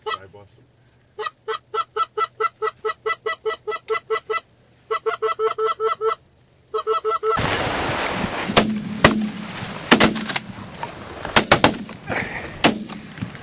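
Rapid, evenly spaced goose honks, about five a second, in three runs. After about seven seconds they give way to a loud rush of noise and several sharp cracks.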